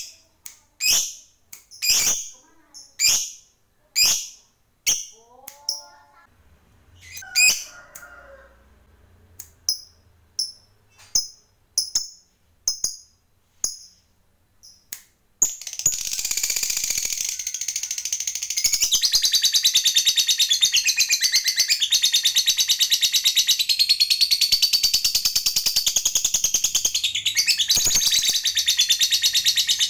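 Lovebird calling: sharp, high-pitched single chirps about once a second, then about halfway through a long, continuous, rapid chattering trill (the 'ngekek panjang' prized in lovebirds), with a brief dip near the end.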